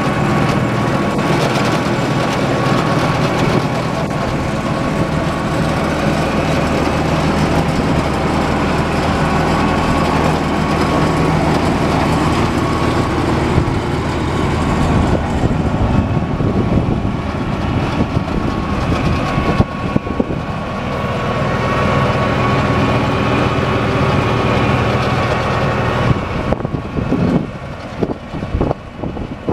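International 3588 tractor's turbocharged six-cylinder diesel engine running steadily, with a steady whine above the engine note. It grows quieter and uneven near the end.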